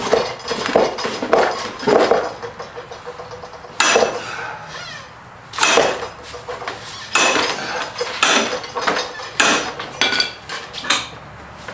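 The steel bar of a manual tire changer scraping and clanking against an aluminum wheel rim as the tire bead is levered off, a series of sharp metal scrapes and clinks about every second, some with a short ring. The bar is scratching and nicking the rim.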